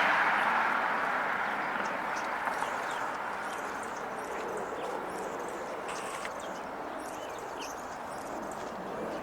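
Small birds, likely house sparrows, chirping in quick short notes over the noise of a passing vehicle that fades steadily away.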